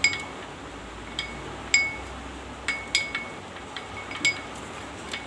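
A metal spoon stirring a thick honey and ginger-juice mixture in a small bowl, striking the side about ten times at uneven intervals with short, high, ringing clinks.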